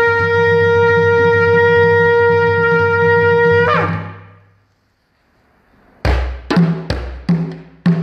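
Blown horn holding one long steady note that drops in pitch as it ends, a little under four seconds in. After a short silence, a djembe starts with a quick run of sharp hand strokes.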